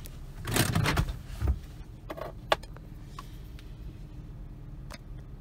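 Objects being handled inside a car: a rustling scuffle about half a second in, a couple of low thumps, then a few scattered light clicks and taps, over a steady low rumble.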